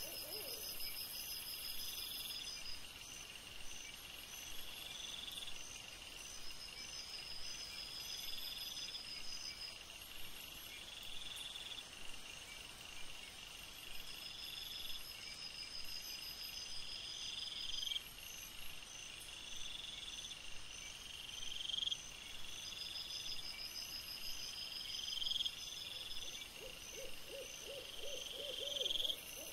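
Night insects stridulating: a high chirp that swells and repeats about every two seconds, over a steady fast pulsing and shorter trills. Near the end a lower, rapid pulsed trill starts.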